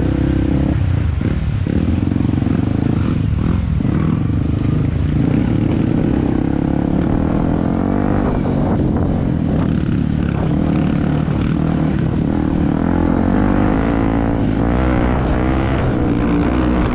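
Yamaha WR155's single-cylinder four-stroke engine running under way on a dirt track, its revs rising and falling as the throttle changes, most often in the second half.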